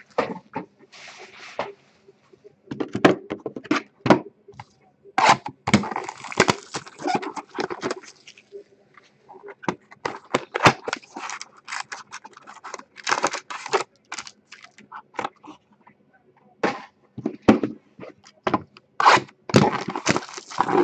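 Plastic wrapping crinkling and crackling in the hands as sealed trading card boxes are handled and unwrapped, with cardboard boxes scraping and knocking against each other and the table.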